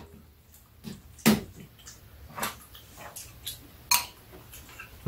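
Metal spoons and chopsticks knocking and scraping against ceramic bowls during a meal: a handful of short, separate clinks spread out, the loudest a little over a second in.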